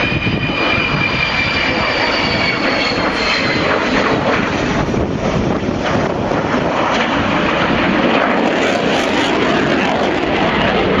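Avro Vulcan's four Rolls-Royce Olympus turbojets running at power on a low pass and climb-away: a loud, steady jet roar. Over the first few seconds a high whine sits on top and falls slightly in pitch as the aircraft passes.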